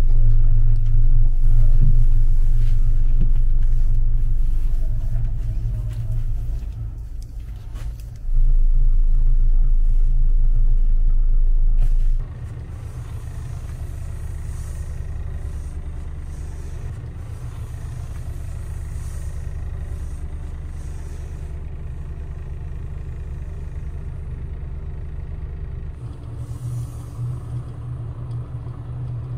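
Bus engine running, a deep steady rumble heard from inside the passenger cabin. It is loudest over the first dozen seconds and drops abruptly to a quieter steady hum about twelve seconds in.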